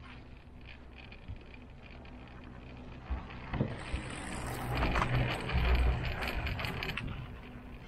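Gondola cable car cabin passing a line tower: the grip and haul rope run over the tower's sheave rollers, giving a few knocks, then a rumbling clatter with rapid clicks that builds and fades over about four seconds. A steady low hum of the moving cabin runs underneath.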